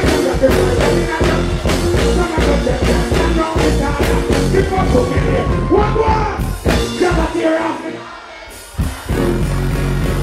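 Live dancehall music through a large stage sound system, a steady beat with a vocalist on the microphone. Near the end the beat drops out for about a second, then comes back in.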